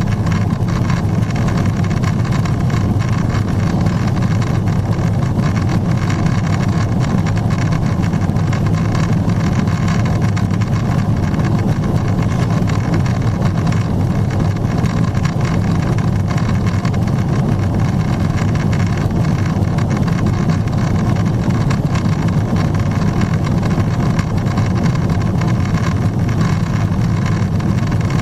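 Steady cabin noise of a Boeing 777-300ER climbing at climb thrust: a constant low rumble from its GE90-115B engines mixed with the rush of airflow over the fuselage, heard from a window seat.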